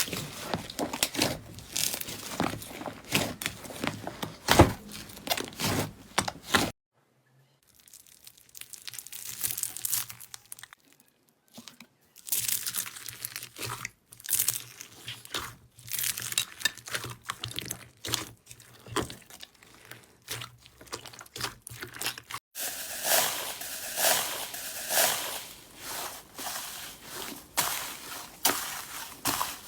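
Slime being squeezed, stretched and pressed by hand close to the microphone, a dense run of sharp crackles and pops. The sound cuts abruptly near 7 s to a quieter, sparser stretch, and again near 22 s to louder, denser crackling, as one clip gives way to the next.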